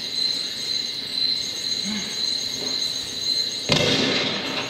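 Cricket chirping, a steady high trill, played as a stage sound effect. About three and a half seconds in, a sudden loud rush of noise lasts about a second.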